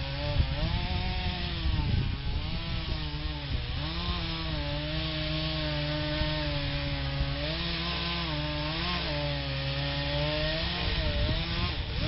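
Gas chainsaw cutting into a willow trunk. The engine revs rise and fall a few times, then hold steady for several seconds while the chain bites, and dip again near the end.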